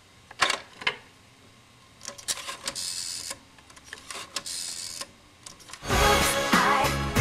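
Rotary-dial telephone: the handset clacks twice as it is lifted from the cradle, then the dial is turned and whirs back with clicking, in two stretches. Near the end, loud music with a beat starts.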